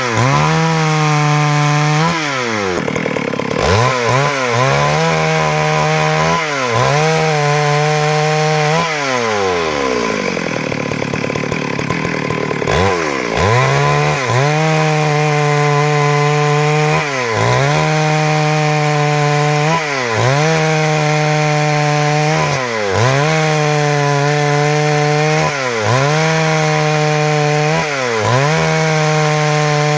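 Stihl MS 382 two-stroke chainsaw cutting wood at high revs. Its pitch drops as the chain loads up in the cut and picks back up every one to three seconds, with one longer, lower-revving drag about ten seconds in.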